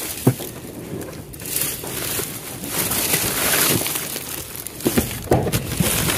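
Cardboard boxes, plastic and mesh onion sacks rustling and scraping as hands rummage through a dumpster's contents, with a few sharp knocks.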